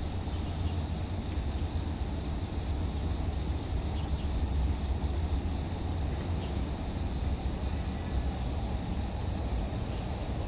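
Steady low rumble of distant road traffic, without breaks or distinct passing vehicles.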